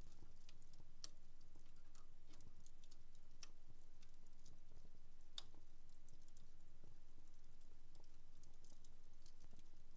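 Wood fire crackling in a fireplace: scattered sharp pops and snaps at irregular intervals, one louder snap about five and a half seconds in, over a steady low hum.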